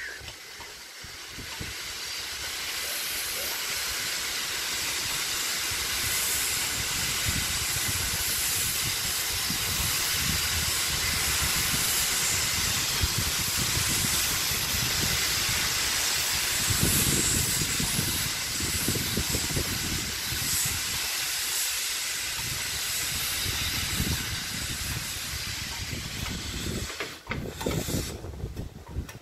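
Steam locomotive letting off steam: a steady hiss that builds over the first couple of seconds and drops away near the end, with low rumbling underneath.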